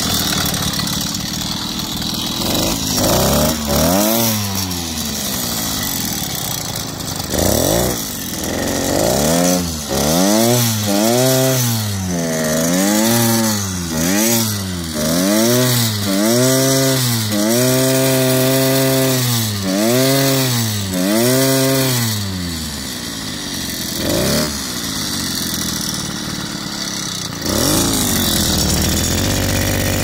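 Small engine of a motorised bicycle running just after being started, its throttle opened and closed over and over so the pitch rises and falls about once a second. It is held high for a couple of seconds in the middle, then drops back to a steady lower running speed with a couple of single revs near the end.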